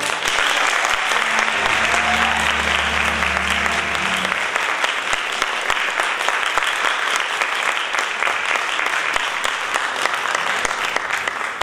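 Theatre audience applauding, dense steady clapping at the end of a dance performance, with a low hum underneath that cuts off about four seconds in.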